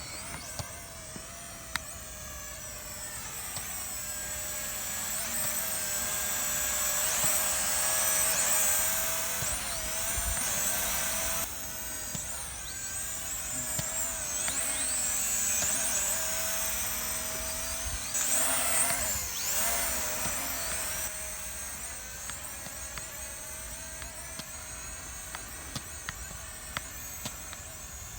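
Small camera drone's propellers whining in flight, the pitch sliding up and down as the motors change speed. It grows louder twice, in the middle and again about two-thirds of the way through.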